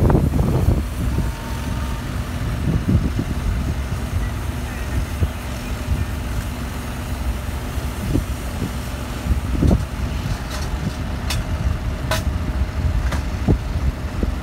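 Fire truck diesel engines idling: a steady low rumble, with a few sharp clicks near the end.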